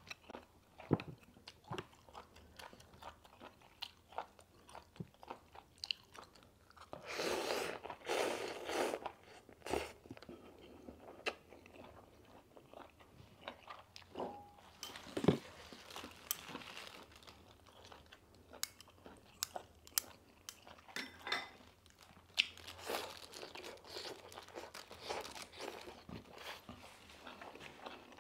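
Close-miked mouth sounds of eating spicy-sauced octopus: repeated wet, crunchy bites and chewing. A louder, denser stretch of chewing comes about seven to ten seconds in.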